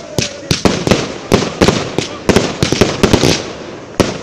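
Aerial fireworks going off in a rapid barrage: sharp bangs at uneven intervals, about three a second.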